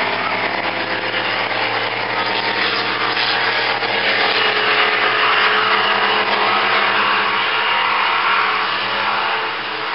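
Two racing boats' engines running hard at full speed in a steady drone, with a rush of noise that swells in the middle as they pass.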